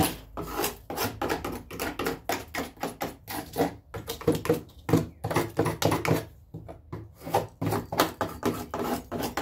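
Hand scraper scraping along the wooden frame of a door's glass-pane opening in quick, irregular strokes, several a second, clearing out old paint and loose debris.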